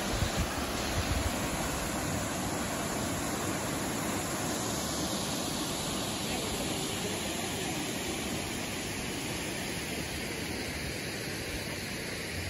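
Aguasabon Falls: the steady, even rush of water pouring into the rock gorge. A few brief low bumps sound on the microphone in the first second or so.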